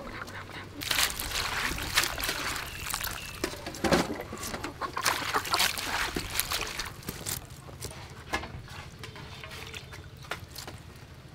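Hands washing shredded cabbage in a metal basin of water: irregular splashing and sloshing, with water dripping back as handfuls are lifted out. Busiest through the first part, sparser and quieter near the end.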